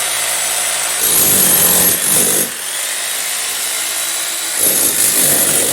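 Electric hammer drill running continuously as it breaks into a masonry wall, growing louder twice as it bites.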